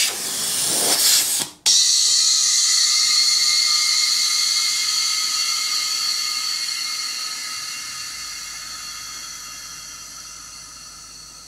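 Compressed air hissing at a brass quick-connect air-line fitting on an air-suspension tank. The hiss cuts off sharply about a second and a half in as the coupler seats. A steady hiss with a faint whistle follows as air flows into the tank, fading slowly as the tank fills.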